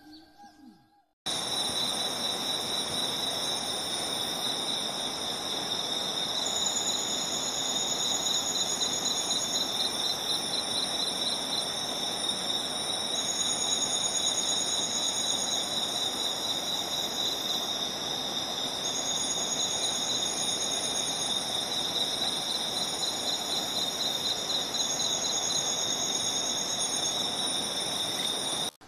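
Forest insect chorus, crickets or cicadas: several steady high-pitched trills over a background hiss, with a still higher trill starting and stopping every few seconds. It cuts in suddenly about a second in.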